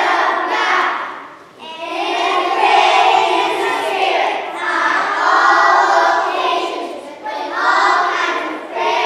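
A group of young children singing a song together, with a short break between phrases about a second and a half in.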